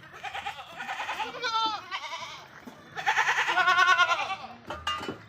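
Goats bleating: two long, quavering bleats, the second starting about three seconds in and louder than the first.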